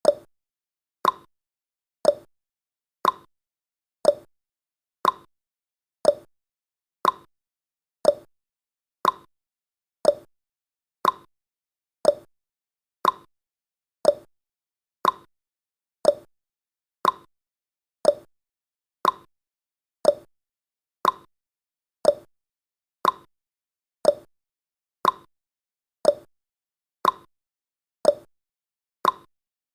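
Countdown timer's tick sound effect: one short, sharp tick every second, evenly spaced, about thirty in a row.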